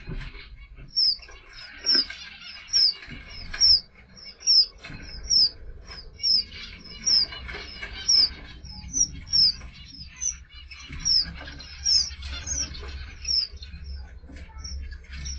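Small aviary finches calling: a steady string of short, high chirps, mostly in quick pairs about once a second, over softer twittering.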